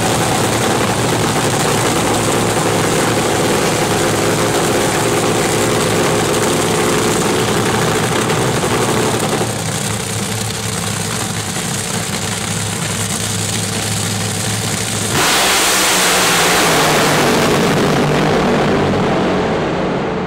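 Top Fuel dragster's supercharged nitromethane V8 idling with a steady note, then at full throttle from about fifteen seconds in: a sudden, very loud blast that fades near the end as the car goes away.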